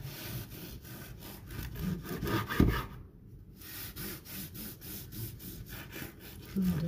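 A bread knife sawing back and forth through the crust of a freshly baked ciabatta loaf on a wooden board, a quick run of rasping strokes. There is a single knock about two and a half seconds in and a short pause just after, before the sawing starts again on the next slice.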